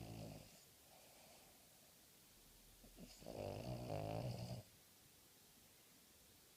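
A terrier snoring in its sleep: the end of one snore at the start, then one full pitched snore about three seconds in that lasts about a second and a half.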